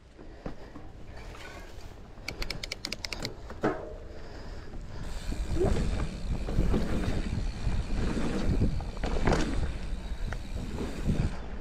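Giant Trance mountain bike rolling down a dirt singletrack: tyres rumbling over the ground, with the bike knocking and rattling over bumps. A short run of quick, even clicks comes about two seconds in, and a sharper knock just before four seconds.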